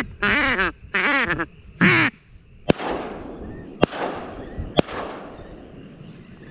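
Three loud duck quacks in quick succession, then three shots from an Adler 12-gauge shotgun about a second apart, each with a long echo tail.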